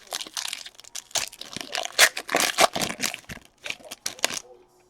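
A trading card pack's wrapper being torn open and crinkled in the hands, an irregular run of crackles that stops shortly before the end.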